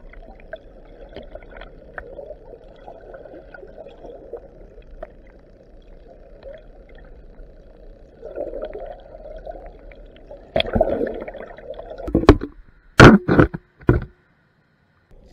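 Muffled underwater rush of river water picked up by an action camera in its waterproof housing, with faint scattered ticks. Near the end come several loud knocks and noisy bursts, the loudest a pair about two-thirds of a second apart, then the sound cuts off abruptly.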